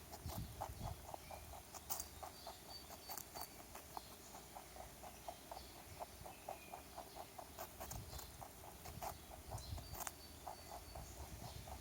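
Rabbit chewing a carrot: quick, even crunching at about four or five bites a second, with a couple of louder crunches.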